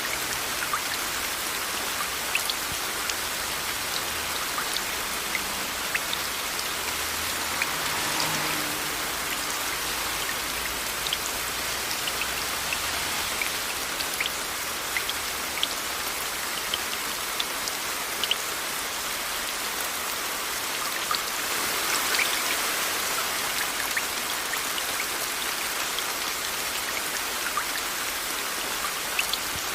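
Steady rain mixed with white noise: an even hiss with many separate drops ticking sharply on a surface, swelling slightly twice.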